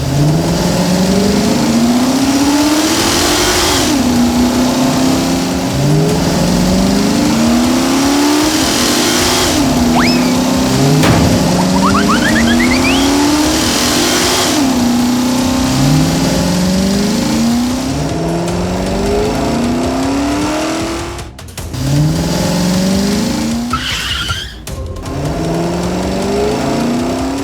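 Car engine accelerating hard through the gears again and again, its pitch climbing and dropping back at each shift every couple of seconds, with brief tyre squeals in the middle.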